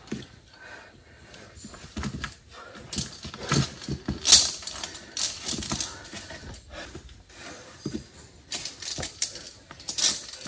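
Irregular clicks and clinks of climbing gear, carabiners and lanyards on the via ferrata's steel cable, with scrapes against the rock as a climber pulls up a steep overhang.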